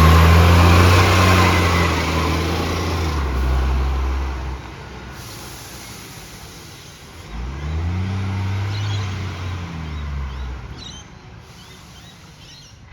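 Garbage truck engine with an exhaust leak, running loud and then fading about four seconds in. About seven seconds in it revs up sharply, holds, then fades away near the end.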